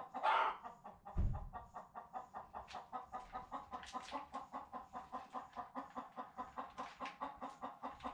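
A chicken clucking in a rapid, even run of short clucks, with a low thump about a second in.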